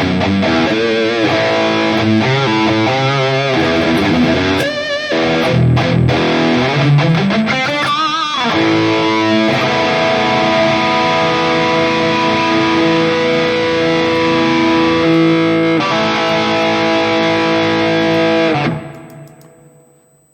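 Distorted electric guitar through a multi-effects modeling unit with a chorus effect: wavering notes and a slide up in pitch, then a long held chord that rings for several seconds before fading away near the end.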